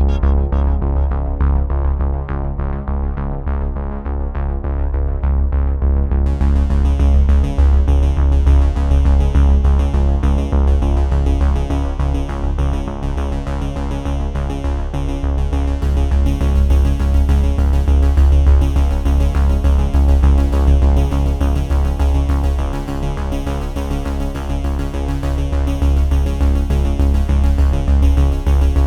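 Electronic background music with a synthesizer and a heavy, steady bass; the high end comes in about six seconds in.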